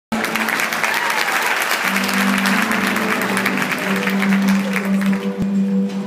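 Audience applauding, thinning out and fading about five seconds in, while music starts underneath about two seconds in.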